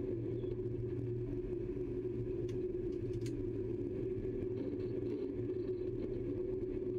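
Steady running noise of an ÖBB class 1144 electric locomotive on the move, heard from its driver's cab: an even low rumble with a constant hum, and two faint clicks near the middle.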